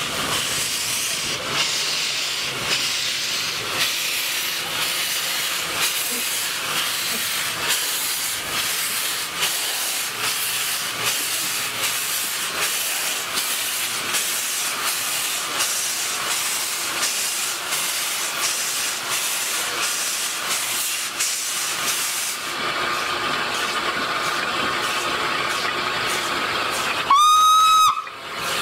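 Steam locomotive hissing steadily as steam escapes. Near the end it gives a single loud whistle blast lasting about a second, the loudest sound here.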